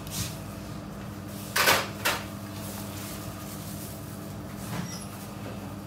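Kitchen clatter: two sharp knocks about half a second apart, something being shut or set down, over a steady low machine hum from the kitchen equipment.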